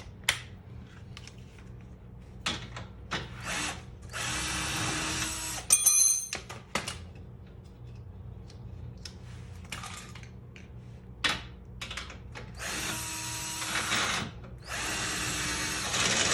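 Cordless drill (not an impact driver) spinning out a stubborn suspension bolt in three short bursts, about four, thirteen and fifteen seconds in, with a brief rattle and scattered clicks and knocks of tools between the runs.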